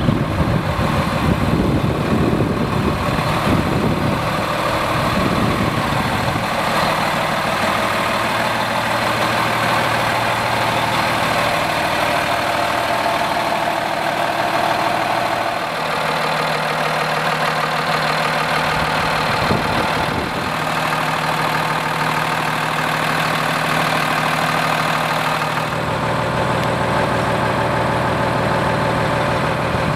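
Freightliner M2 hauler truck's diesel engine running steadily, its engine note shifting a few times.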